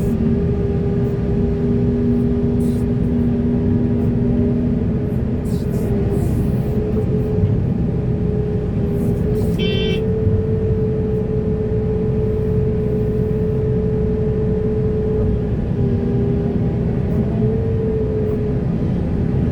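Heavy diesel earthmoving machinery running under load: a dense low engine rumble with a steady whine that wavers slightly in pitch, and a brief high tone about ten seconds in.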